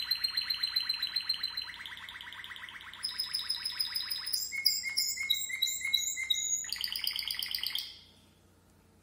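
Timbrado Español canary singing: a long, fast, rolling trill, then a run of quicker phrases that step between pitches. The song breaks off about a second before the end.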